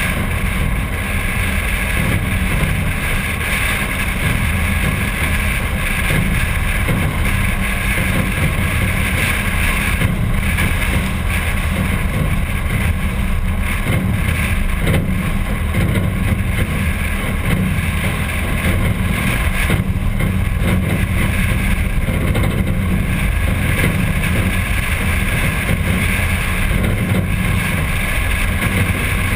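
A 1951 Packard's straight-eight engine running, a steady low rumble heavily mixed with wind buffeting the outside-mounted camera's microphone.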